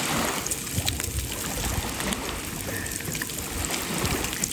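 Small waves lapping and trickling at the water's edge, with an uneven low wind rumble on the microphone.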